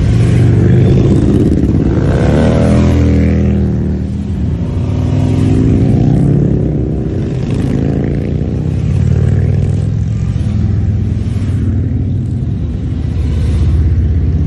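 A column of large touring motorcycles riding past one after another, their engines running with a deep rumble. The engine pitch sweeps as individual bikes go by, most clearly about two to three seconds in and again around six to eight seconds.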